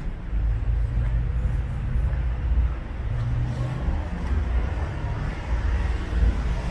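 Street ambience dominated by a low, steady rumble of road traffic.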